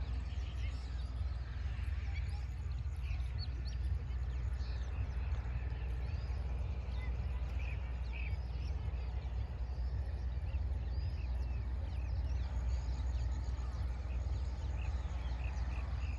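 Many small birds chirping, in short scattered calls, over a steady low rumble.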